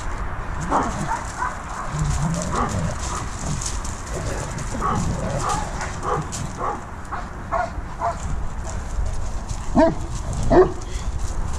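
Caucasian Shepherd and Newfoundland dogs in a confrontation, giving short barks, yips and growls. The two loudest calls come close together near the end.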